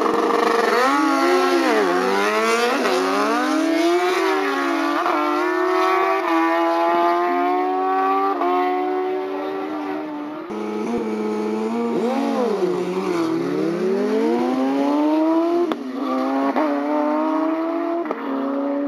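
Drag-racing sport motorcycles accelerating hard down the strip, the engine pitch climbing and dropping sharply at each upshift. This happens in two runs, with an abrupt cut about halfway.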